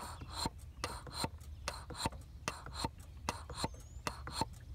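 Quick, irregular sharp ticks and spits, several a second, from the coolant degas bottle and its pressure cap on a GM 6.5 diesel as the upper radiator hose is squeezed, over a steady low hum. The cooling system is not holding pressure: air and coolant escape past the cap instead of building pressure in the hose.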